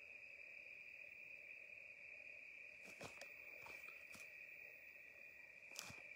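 Faint, steady high-pitched trilling of crickets, with a few soft clicks from about three seconds in.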